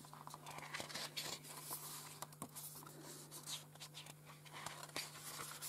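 Soft rustling and light handling of the glossy paper pages of a mediabook's bound booklet as it is leafed through, with a page turned partway.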